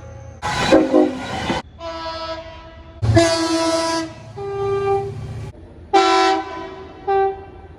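Locomotive air horns sounding a series of about six blasts, some about a second long and others short. The two loudest blasts come with a rushing noise.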